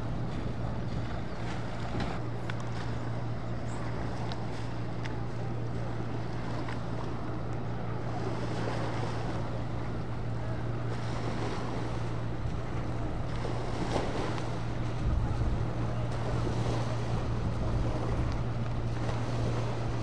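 Rigid-hulled inflatable boat's engine running with a steady low drone as it speeds past, with the rush of water from its hull and wake.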